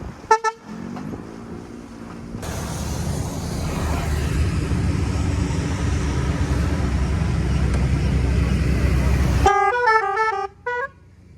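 Telolet multi-tone car horn: a short toot about a third of a second in, then a quick melody of stepping horn notes near the end. In between, a loud steady vehicle rumble that cuts off suddenly just before the melody.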